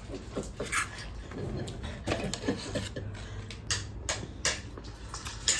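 Scattered light clicks and taps from kitchenware being handled while a large steel pot is wiped out, several close together in the second half.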